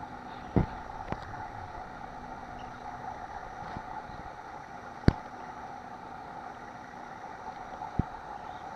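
A steady background drone with three short, sharp clicks, the loudest about five seconds in.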